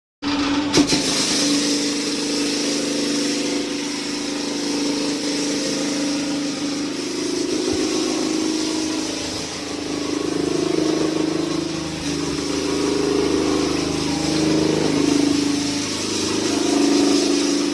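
A motor-driven machine running steadily, with a loud hiss over a held hum whose pitch drifts up and down in the second half. A sharp click sounds just under a second in.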